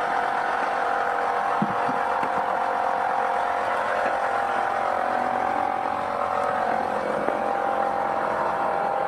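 Smoke machine running steadily during a vacuum leak smoke test, a constant hum with a hiss as it pushes smoke into the engine's hoses.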